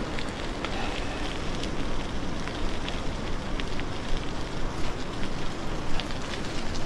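Mountain bike rolling downhill on a wet gravel road in the rain: a steady rush of tyre and wind noise on the microphone, with scattered sharp ticks throughout.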